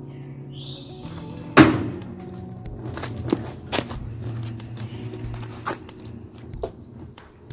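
Background music with a loud thump about a second and a half in and scattered lighter knocks and clatter, as a washing machine is wheeled on a hand truck over concrete.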